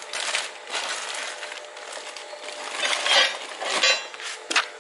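Hands working under a motorcycle's plastic rear tail panel fitting a saddle bag stay: plastic scraping and rustling with small metal hardware clicking and clinking, loudest about three seconds in.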